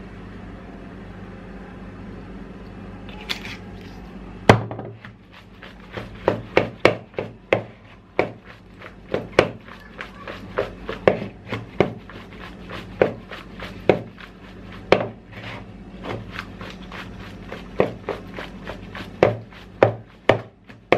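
Salad being tossed by shaking it in a plastic bowl: a string of irregular knocks, one or two a second, starting with a loud one about four and a half seconds in.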